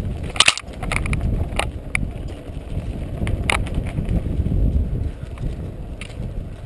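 Mountain bike rattling down a bumpy dirt singletrack: a steady low rumble of tyres and wind on the microphone, broken by sharp clacks and clatters of the bike over bumps, the loudest about half a second in.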